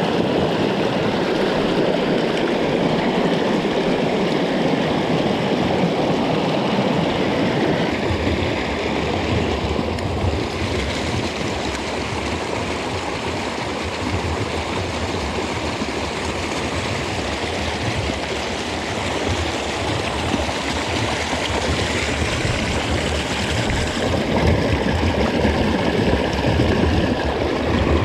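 Mountain stream water running over rocks, a steady noise that dips slightly midway.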